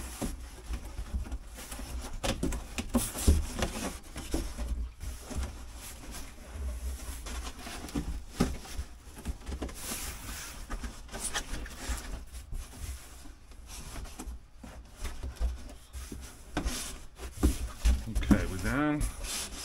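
Corrugated cardboard boxes being slid over one another and pushed down tight: irregular scraping and rustling of cardboard on cardboard, with scattered knocks.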